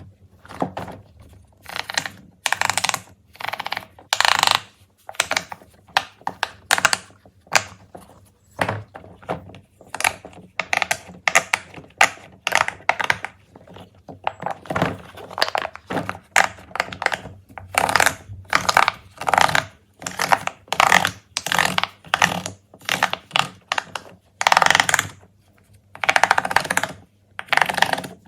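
Fidget toys, largely pop its, being handled and set down: a rapid run of clicks, taps and small pops, broken by a few short rustling swishes.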